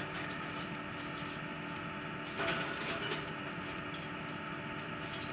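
Newly hatched Serama bantam chick chirping: a long run of short, high, bird-like peeps, about three or four a second, with a couple of brief pauses.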